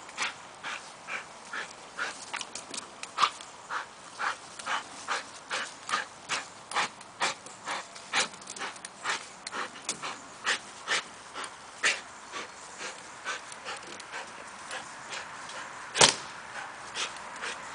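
Brabanter bullebijter bulldog panting in quick rhythmic breaths, about two a second, from the exertion of leaping and running. One sharp knock near the end.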